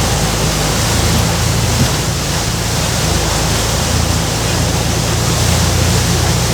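Heavy rain pouring down, a loud, steady hiss without a break.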